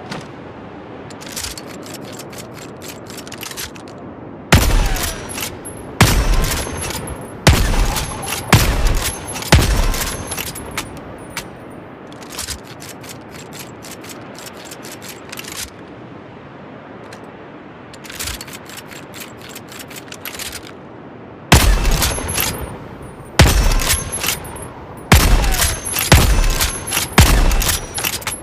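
Rifle firing in two strings of five loud shots, about one to one and a half seconds apart, each with a short echoing tail. Between the strings come runs of quick, faint metallic clicks.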